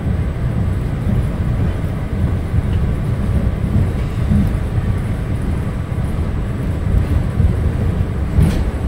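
Steady low rumble inside an MBTA Red Line subway car as it rolls into Braintree station: wheels on the rails and the car's running gear.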